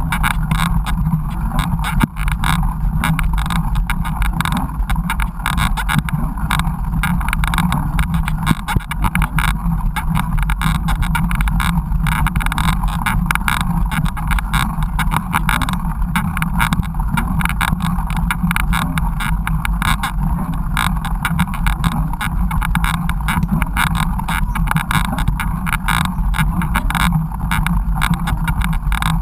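Mountain bike riding over rough trail, recorded by a bike-mounted action camera: steady low wind rumble with constant rattling and knocking from the bike and camera mount.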